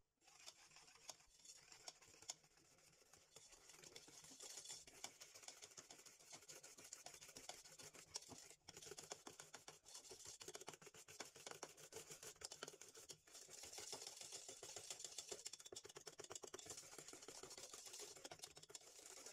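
Faint, rapid clicking and scraping of a wire balloon whisk beating eggs, sugar and flour against the sides of a stainless steel saucepan, with two brief pauses partway through.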